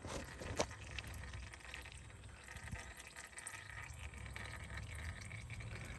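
Used engine oil pouring in a faint, steady stream from the open drain-plug hole into a drain pan, with a single small click about half a second in.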